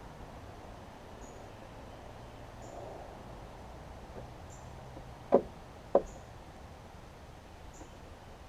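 Two sharp knocks about half a second apart, as hardware is worked on a push mower's handle assembly. A faint high chirp repeats about every second and a half.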